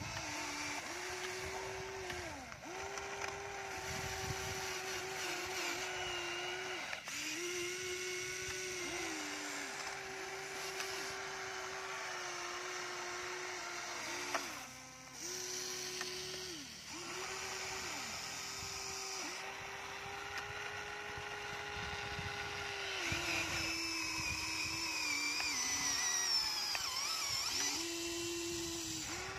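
Small electric motors of a Huina radio-controlled toy excavator whining as the arm and bucket dig and swing. The whine cuts in and out every few seconds. Near the end a higher whine wavers and falls.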